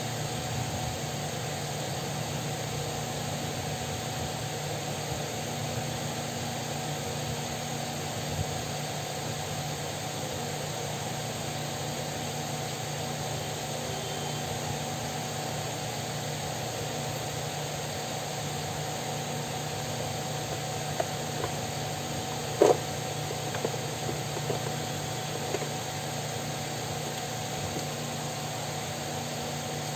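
Steady whirring hum of a running electric fan. A few light ticks come in the second half, with one short, sharper knock about two-thirds of the way through.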